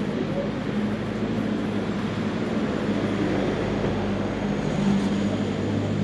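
Steady street background noise with a constant low hum and no distinct events.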